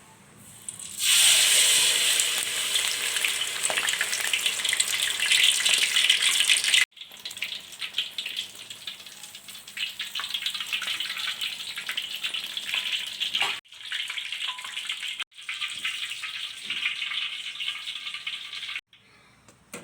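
Prawn fritter batter sizzling and crackling as it fries in hot oil. It starts about a second in, is loudest at first, then carries on more softly, breaking off abruptly several times.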